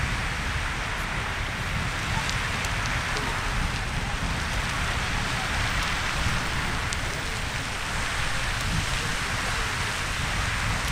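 Riverside Geyser erupting: a steady rushing hiss of water jetting out and falling back, with a low rumble underneath.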